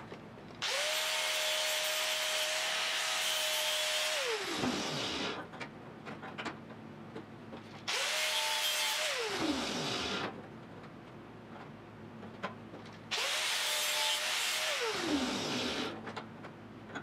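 Angle grinder with a thin cut-off disc cutting into the sheet-steel edge of a Triumph GT6 roof panel in three separate runs: a long one, then two shorter ones. Each time the motor spins up to a steady whine, cuts with a harsh hiss, and winds down with a falling pitch when released.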